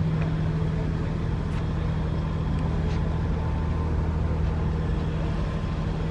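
Tour boat's engine idling: a steady low hum.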